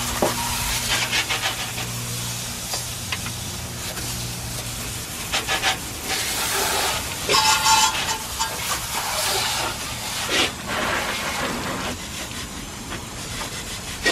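A jet of water from a hose spray wand hissing and splattering against a bare brake rotor and the inside of the wheel well, with louder surges as the spray moves.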